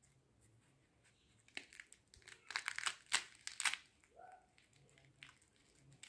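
Crisp fried chavde pastry being broken apart by hand, its brittle layers cracking in a quick run of sharp crackles about a second and a half in, loudest around three seconds, then a few faint snaps.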